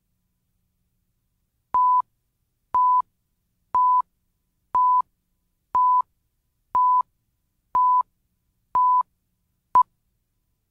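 Countdown-leader beeps: a steady mid-pitched tone sounds once a second, eight times, each beep about a quarter second long, then one final very short blip. They mark off the seconds of the countdown before the programme starts.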